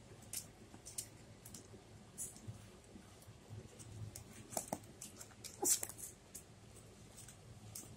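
Doberman puppies squirming in a plastic kiddie pool: scattered clicks and scuffs of paws and claws on the plastic and towels, with two brief puppy squeaks about halfway through, the second the loudest sound.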